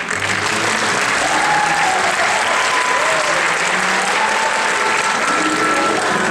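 Audience applauding steadily, the clapping starting abruptly and filling the whole time, with faint music coming in underneath near the end.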